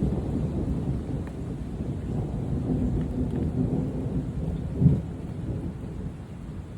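A deep, continuous rumbling noise from the sky, with a faint held droning tone in the middle and a short louder thud just before five seconds in. It eases off toward the end.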